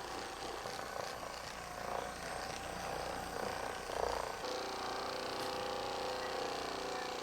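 Handheld electric massager buzzing against the patient's back muscles, its sound settling into a steady hum about four and a half seconds in.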